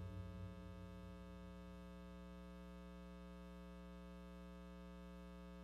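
Music fades away in the first second or so, leaving a faint, steady hum made of many pitches held unchanged.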